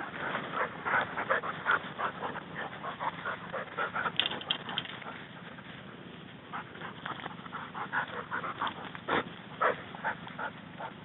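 Dogs whining and yipping in many short, quick bursts, with a brief lull about halfway through.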